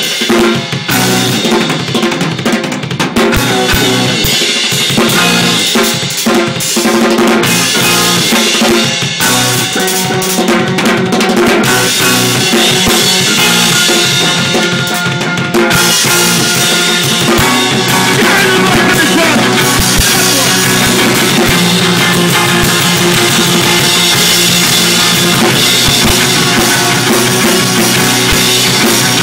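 Live rock drum solo on a full drum kit: kick drum and snare with rimshots. About halfway through it thickens into a denser, continuous sound.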